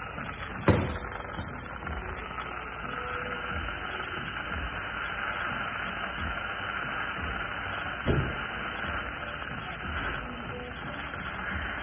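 Steady hiss of a dental air-water syringe spraying the teeth while suction draws off the water, rinsing away the etchant. Two brief knocks come about a second in and about eight seconds in.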